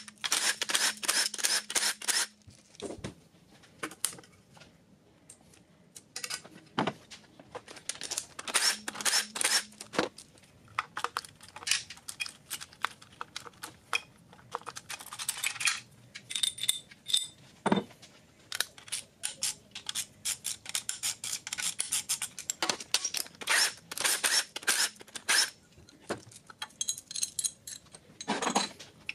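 Cordless impact driver rattling bolts out of an LS3 engine's front timing cover in short runs at the start and again around eight to ten seconds in, with metal clinks and scrapes of bolts and the aluminium cover being handled as it comes off the block.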